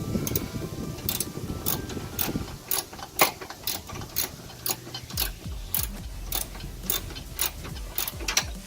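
Hand ratchet clicking in short, even strokes, about three clicks a second, while a bolt on a rear camber arm is being tightened.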